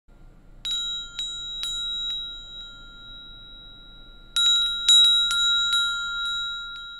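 Small metal bells hanging on chains jingling against each other: a few light clinks in the first couple of seconds, then a busier cluster about four seconds in, each leaving a clear high ringing tone that hangs in the air.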